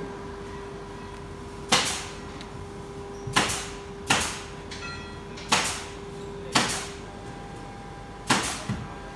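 About seven sharp clacks at irregular intervals, one with each press on a roulette gaming machine's touchscreen as betting chips are placed, over a steady low hum.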